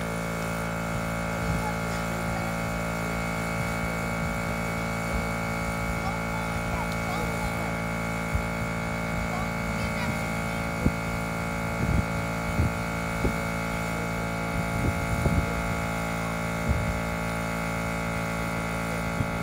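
Small portable air compressor running steadily, a constant motor-and-pump hum, with a few short knocks over it in the second half.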